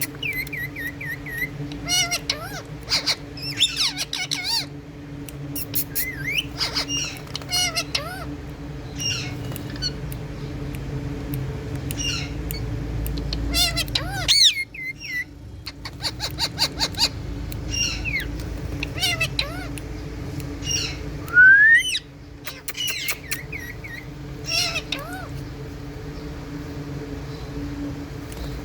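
Indian ringneck parakeets chirping and squawking in short calls and quick trills, with one loud rising squawk about two-thirds of the way through, over a steady low hum.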